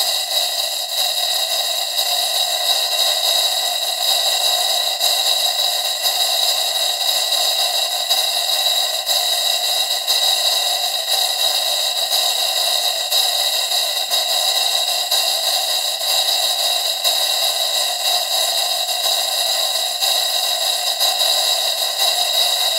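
Two model steam engines running on compressed air, both exhausting through a brass chuff pot with its chuffing assembly fitted. It makes a very loud, steady, harsh hiss of rapid exhaust chuffs.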